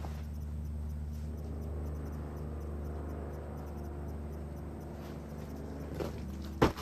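Steady low hum with faint insect chirping, then a sharp thud near the end as the climber comes off the boulder onto the crash pad, with a smaller knock just before it.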